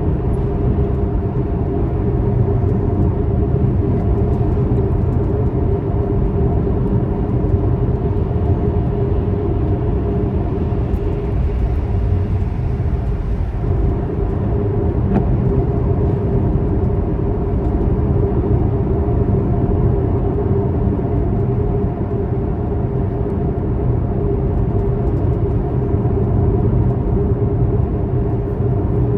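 A vehicle running steadily: a continuous low rumble with a droning hum, unchanging throughout.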